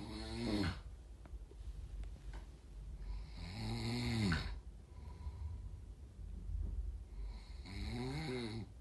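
A man snoring in his sleep: three long snores about four seconds apart, each rising then falling in pitch. He has sleep apnea, and the anti-snoring throat spray he used before bed seems not to have helped.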